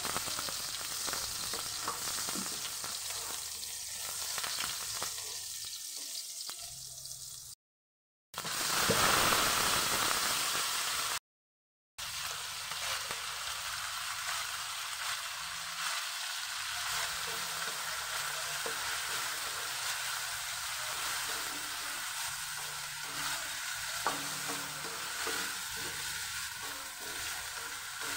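Diced potato and chopped onion sizzling in hot oil in a metal wok, with corned beef added and stirred in using a wooden spatula. The sizzle is louder for a few seconds around a quarter of the way in, and the sound cuts out abruptly twice.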